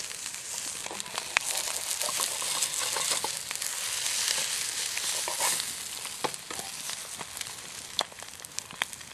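Eggs frying in a skillet: a steady sizzle full of small crackles. It swells in the middle and eases off toward the end, with a few sharp ticks near the end.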